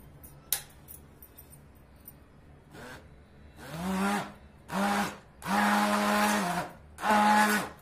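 Electric hand blender pulsed in a glass bowl of mango custard and cream: after a single click, four short bursts of motor hum start about three and a half seconds in. Each burst spins up quickly to a steady pitch and then stops, and the longest lasts about a second.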